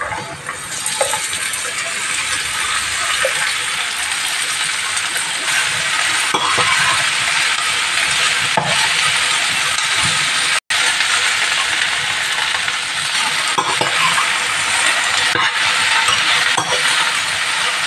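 Chopped okra sizzling in hot oil in a steel frying pan as it is tipped in and stirred, the sizzle building over the first couple of seconds. A spatula scrapes and clinks against the pan now and then, and the sound cuts out briefly about ten seconds in.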